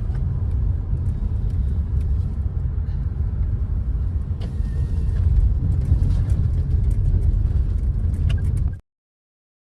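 Steady low rumble of a car's engine and tyres heard from inside the moving car, with a few faint clicks and rattles. It cuts off abruptly to silence near the end.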